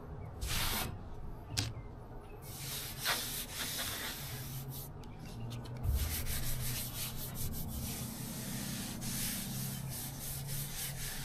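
Sandpaper being rubbed back and forth by hand over a car body panel. There are a few separate scratchy strokes at first, then from about two and a half seconds in a quicker, steady run of strokes.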